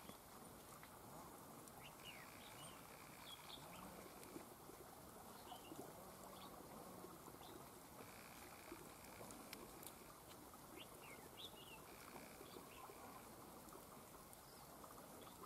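Red-whiskered bulbuls giving faint, scattered short chirps and quick gliding call notes, over a faint high buzz that comes and goes every few seconds.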